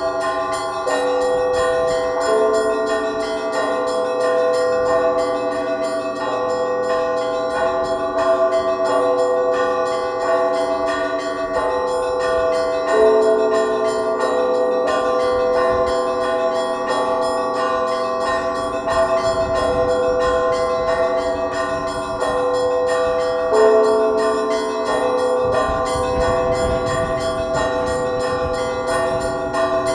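Russian Orthodox church bells rung by hand in a rhythmic matins peal: smaller bells are struck over and over in a pattern, with a deeper bell sounding about every ten seconds under the ringing.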